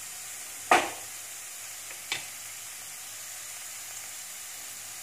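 Chopped vegetables frying in a non-stick kadai over a medium flame, a steady gentle sizzle as they sauté. A sharp knock comes about a second in and a lighter one about two seconds in.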